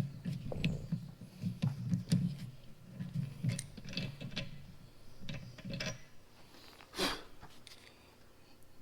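Hand tools working on a broken bolt in a cast tractor bolster: irregular small metal clicks and scraping for about six seconds, then one louder sharp sound about seven seconds in.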